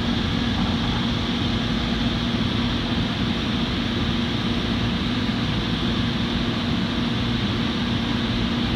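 Inside an LA Metro Gold Line light rail car running between stations: a steady rumble of the train under way with a constant low hum.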